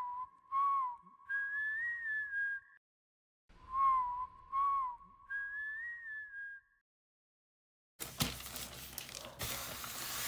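A short whistled phrase is played twice, identical each time: a low note that bends briefly, then a higher wavering note, with a short gap between the two plays. Near the end, after a brief silence, a stretch of noise with a few clicks begins.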